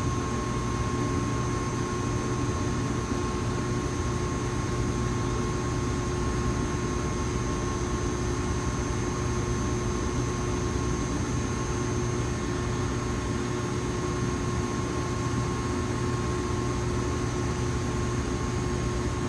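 Electrical power equipment running with a steady hum and a few constant tones over the even rush of cooling fans.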